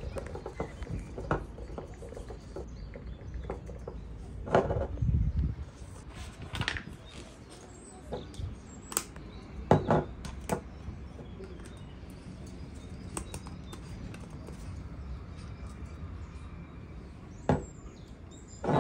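Household objects being handled and set down in a kitchen: scattered clicks and knocks, the loudest a little under ten seconds in, with a short low rumble around five seconds in.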